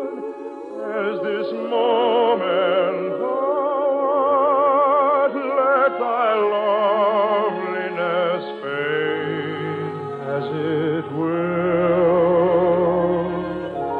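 Operatic-style music from an old radio broadcast musical: long held melody lines with strong vibrato in several phrases, with a deeper bass part entering about nine seconds in.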